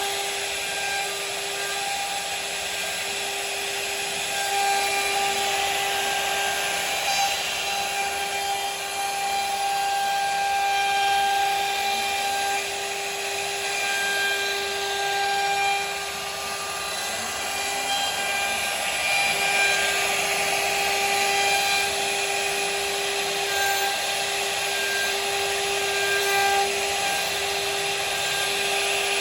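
CNC router spindle running with a steady high whine while a V-bit cuts into wood, with a rasping cutting noise that swells and eases.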